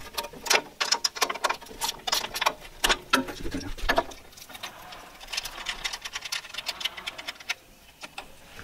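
Ratcheting wrench clicking in quick, uneven runs while loosening a nut on a gas grill's burner-tube mount: sharper metal clicks in the first half, then faster, finer ticking from about halfway.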